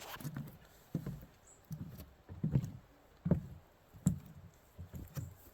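Footsteps of a person walking outdoors, a soft step roughly every 0.8 seconds.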